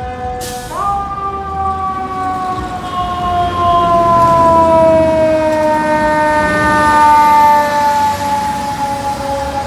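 Fire engine siren whining and falling slowly in pitch, getting louder as the truck passes close by. A short burst of hiss comes about half a second in, just before the siren's pitch jumps up.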